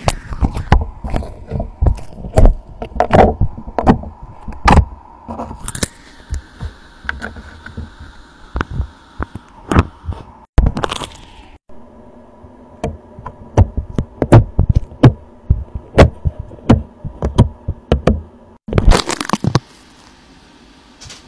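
Fidget toys being handled for ASMR: many quick, irregular taps and clicks with a few short scratchy bursts, and a brief break a little past the middle.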